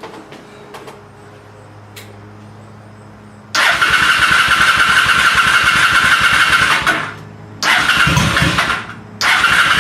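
Honda Shadow motorcycle's electric starter cranking the V-twin engine in three bursts, with short pauses between: the engine turns over but never catches, a no-start. A few light clicks come before the first burst.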